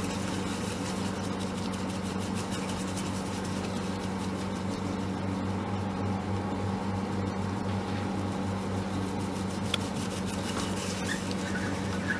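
Bread machine running its mochi-pounding cycle, the motor humming steadily as the paddle turns a ball of pounded glutinous rice in the pan. A light click comes near the end.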